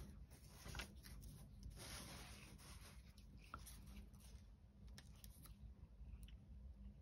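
Faint rustling and sliding of paper cut-outs being handled on a cutting mat, with a single small click about halfway through.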